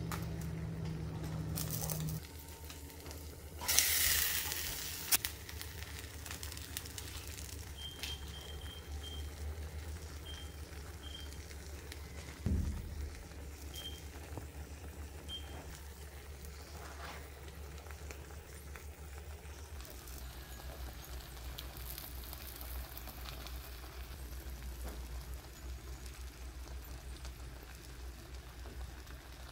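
Fish and melting cheese cooking in a wok over a gas burner, a faint steady sizzle over a low hum. A brief loud noise about four seconds in and a dull thump about twelve seconds in.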